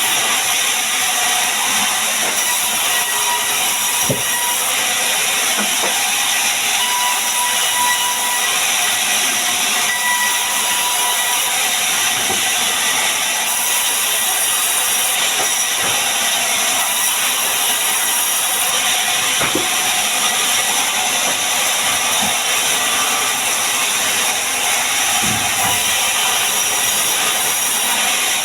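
Electric woodworking power tool running continuously as it cuts wood, a steady, loud, high hiss with a few faint knocks from the work.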